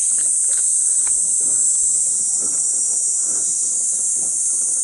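Steady high-pitched drone of a summer insect chorus.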